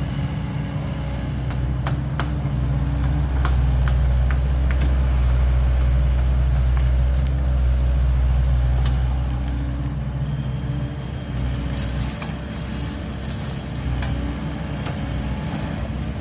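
Diesel engine of a SANY SY75C excavator running, working harder for several seconds and then easing back, with scattered sharp clicks and knocks.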